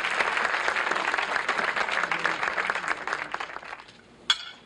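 Audience applause, many hands clapping, fading out about three and a half seconds in. Near the end comes a single short clink.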